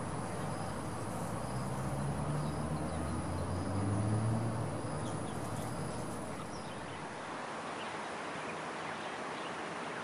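Outdoor ambience: a steady hiss, with a low engine hum that swells and fades in the middle, like a vehicle passing at a distance. A few faint, short chirps sit over it.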